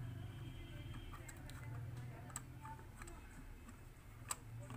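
Light clicks and taps of a Simpex camera flash unit's plastic housing as its top cover is fitted back on by hand, scattered irregularly, with the sharpest click near the end.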